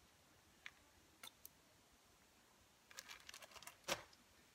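Quiet handling noise of plastic toiletry bottles and packaging: a few faint clicks, then a cluster of small clatters about three seconds in ending in a sharper knock as a bottle is set down.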